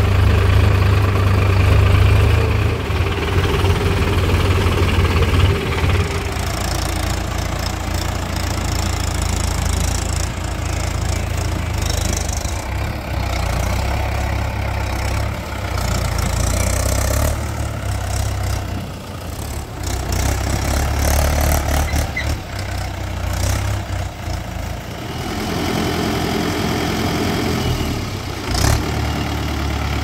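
Diesel tractor engines running with a deep, steady rumble that shifts in tone and level a few times. A brief sharp knock sounds near the end.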